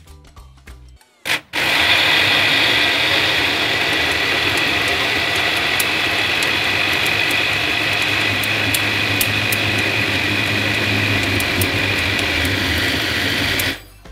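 Electric countertop blender running at a steady speed, blending soaked beans, scotch bonnet peppers, onions and water into a smooth batter. It clicks on about a second and a half in, runs evenly for about twelve seconds, and cuts off abruptly near the end.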